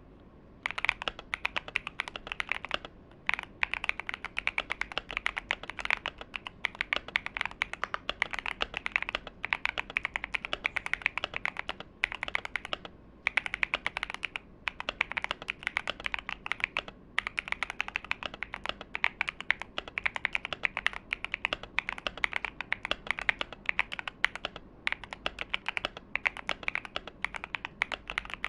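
Typing on a mechanical keyboard with factory-lubed Gateron Baby Kangaroo tactile switches on a brass plate in a top-mount case: a fast, continuous run of keystrokes starting about half a second in, broken by a few short pauses.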